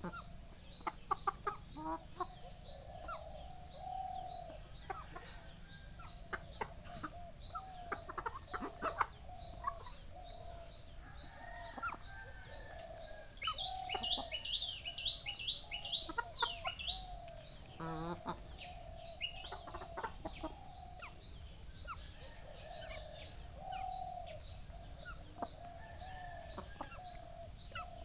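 Hens clucking on and off, with small birds chirping, busiest about halfway through, over a high chirp that repeats evenly a few times a second.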